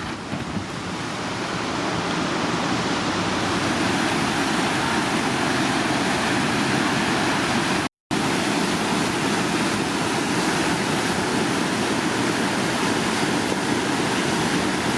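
Steady rush of river whitewater pouring through a standing surf wave. It builds over the first two seconds and cuts out for an instant about eight seconds in.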